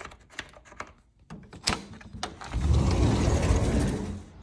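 A few light clicks and knocks, then a sliding glass door rolling along its track for about a second and a half, a low rumbling slide that fades out near the end.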